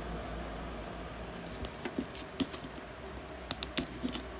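Light clicks and crinkles of Mini Brands toy packaging being worked and peeled open by hand, a handful of small sharp ticks, mostly in the second half.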